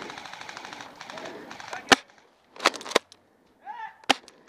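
Airsoft gunfire: a rapid full-auto burst clattering for about two seconds, then four sharp single shots over the next two seconds.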